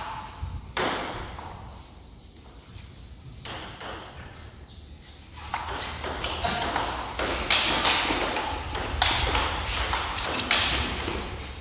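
Table tennis rally: the celluloid ball clicking off rubber paddles and bouncing on the table, each hit echoing in a large hall. A few hits come in the first half, then a faster run of them in the second half.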